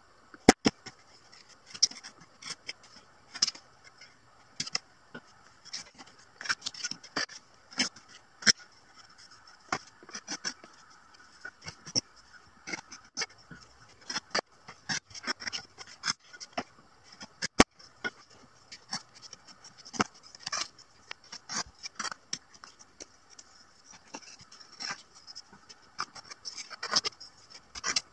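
A hand blade paring shavings off a small softwood block: short, irregular scraping cuts, about one or two a second, some with a sharp click.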